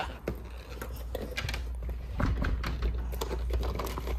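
Scattered light clicks and rustles of movement and handling over a steady low hum.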